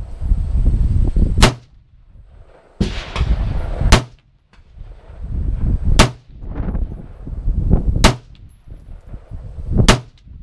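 Rifle gunfire at a measured pace: about five sharp shots roughly two seconds apart, with a low rumbling noise between them.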